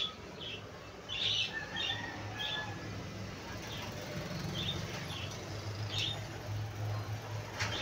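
Electric pet clipper running with a steady low hum, with short high chirps scattered irregularly over it.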